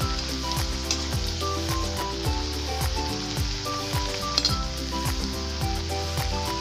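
Potato pakoras sizzling as they deep-fry in hot oil in a kadhai, a steady bubbling hiss, just after being turned over. Background music with a steady beat plays over it.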